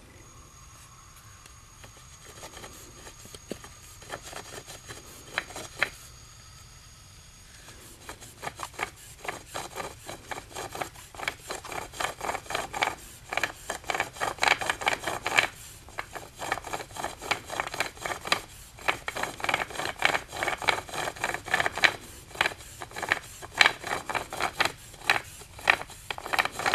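Bow drill being worked: a hazel spindle rubbing in an ivy hearth board under a scallop-shell bearing block, driven back and forth by a wool cord. The strokes are sparse and faint at first, then fast and steady from about eight seconds in. The drill keeps spinning in place without catching; she wonders whether the wool cord or pressing too hard on the shell is to blame.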